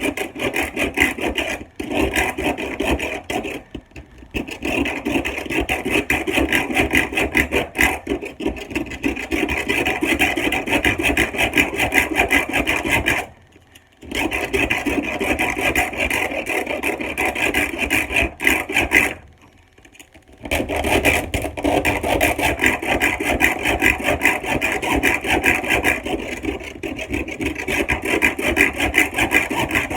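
Ginsu serrated knife drawn rapidly back and forth through a block sharpener, a steady scraping rasp of blade on sharpener, broken by two short pauses about 13 and 19 seconds in.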